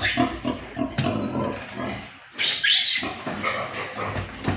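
Pigs squealing and grunting, with one sharp high squeal about halfway through that lasts about half a second.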